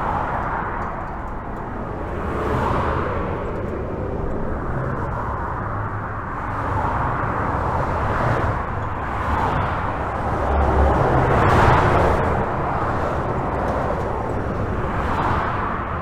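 Continuous highway traffic heard from under a bridge: a steady rush of tyres on the road with a low rumble, individual vehicles swelling and fading as they pass every few seconds, the loudest pass about eleven to twelve seconds in.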